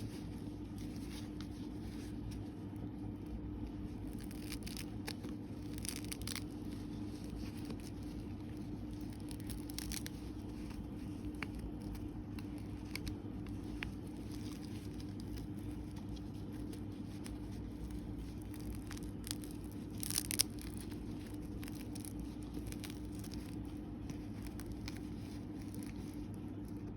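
Steady low hum with a faint constant tone, broken by a few soft clicks and rustles of the toy figure being handled; the loudest cluster comes about twenty seconds in.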